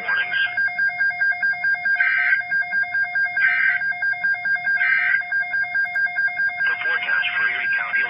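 Music with a plucked, guitar-like sound over two steady held tones, pulsing in a quick even beat.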